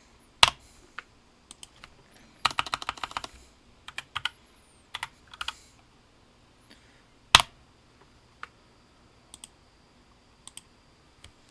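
Computer keyboard typing: a quick run of keystrokes about two and a half seconds in, with scattered single key clicks around it and the loudest single click about seven seconds in.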